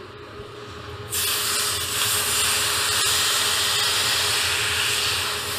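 Ice water from a soaked rag hissing into steam on freshly laid, still-hot weld beads on a steel axle tube. It starts about a second in and then runs steadily. This is the quench meant to shrink the heated metal and pull the bent tube straight.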